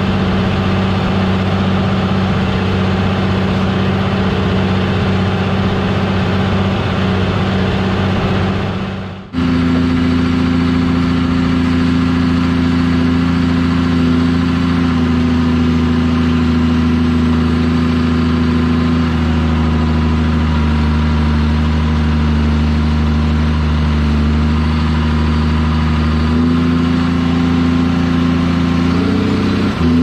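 John Deere 7200R tractor's diesel engine running steadily under load while pulling a seven-furrow Kverneland plough. About nine seconds in the sound cuts to a different recording of the engine, whose pitch steps up or down slightly a few times.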